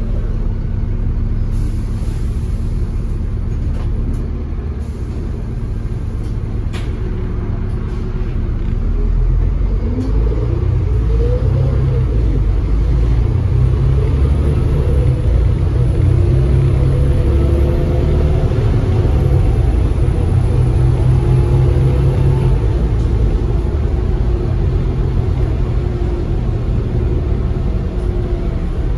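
Dublin Bus AX615 double-decker's diesel engine and drivetrain, heard from inside the bus as it drives: a steady low rumble with road noise. About ten seconds in, the engine note rises and gets louder as the bus picks up speed, then settles into a steady drone with a whine.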